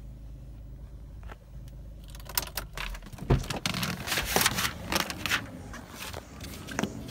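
Handling noise inside a car cabin: rustling, clicks and a few sharp knocks as someone moves about and opens the driver's door, over a low steady hum in the first two seconds.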